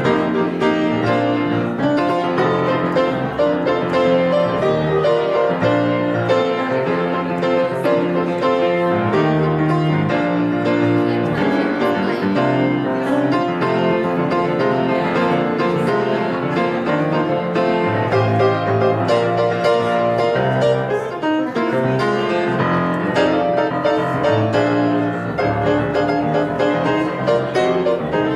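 Piano playing a continuous classical-style postlude, a steady flow of changing notes without a break.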